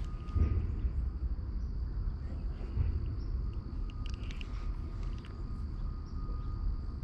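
Crickets chirring in a steady high drone, over a low rumble with a few small clicks.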